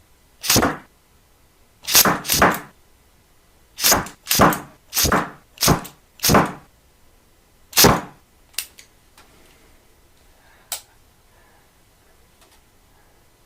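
Nail gun firing repeatedly: about nine sharp shots, irregularly spaced, some in quick pairs, each with a short hiss. They stop about eight seconds in, followed by a few faint clicks.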